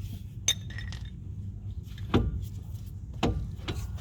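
Metal tool clinks and knocks as a 13 mm spanner works the bottom bolt out of a brake caliper: a short ringing clink about half a second in, then two louder knocks about two and three seconds in. A steady low hum lies underneath.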